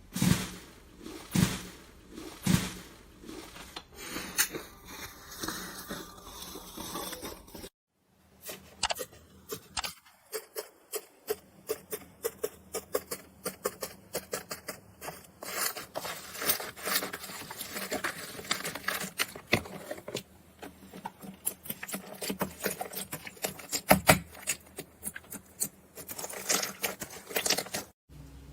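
Slime being pressed and handled, with dense crackling and popping clicks. A few soft thuds come in the first seconds, and there is a short silent break about eight seconds in.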